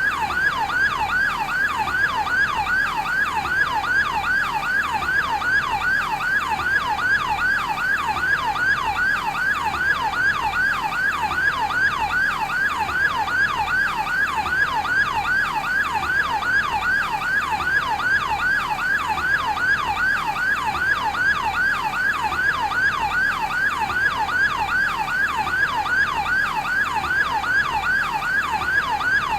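Yelp siren of a fire brigade advanced life support ambulance, sounding without a break in rapid, evenly repeated sweeps of pitch, about two to three a second.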